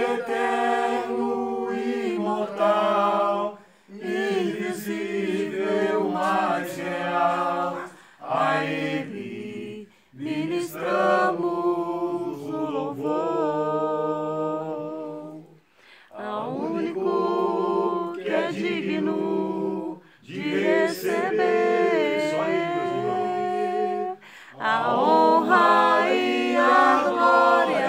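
A small group singing a Portuguese worship song unaccompanied, in drawn-out phrases of held notes separated by short pauses.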